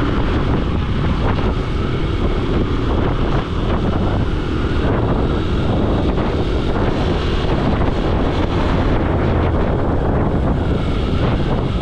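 Steady road noise of a moving vehicle, with wind buffeting the microphone.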